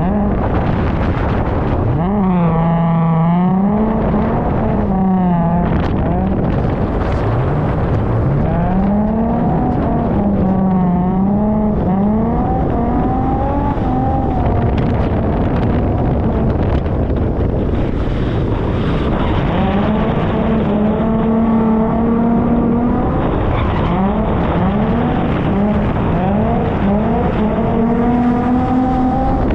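Holden Commodore's 3.8-litre Ecotec V6 being driven hard while drifting, its revs rising and falling over and over as the throttle is worked.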